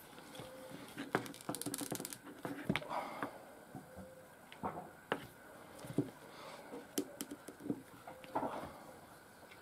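A thin strap rustling and slapping as it is pulled through and tightened into a knot around a small knife sheath, with scattered light clicks and taps from handling on the table.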